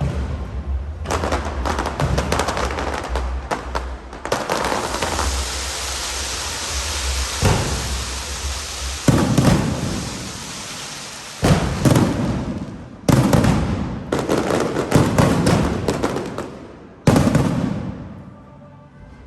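Aerial fireworks: a long stretch of dense crackling, then four sharp bangs, each trailing off in crackle and echo, about 9, 11½, 13 and 17 seconds in. Music plays underneath.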